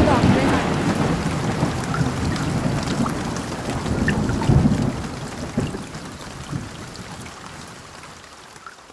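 Thunder rumbling over steady rain, loudest at the start, with further low rolls about four seconds in, the whole storm fading away toward the end.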